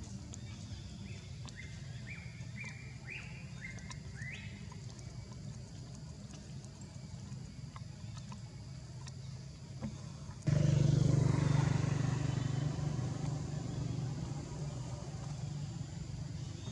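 Steady low motor hum with a run of short rising chirps in the first few seconds; about ten seconds in, a much louder engine noise cuts in suddenly and slowly fades away.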